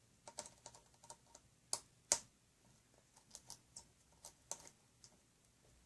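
Small Phillips screwdriver working the screen-bracket screws of a laptop: a faint, irregular run of small clicks and ticks, with two louder clicks about two seconds in.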